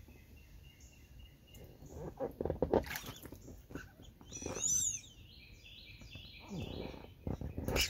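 Birds singing outdoors in a run of short high chirps, with a few splashes of water in a small inflatable pool about two to three seconds in.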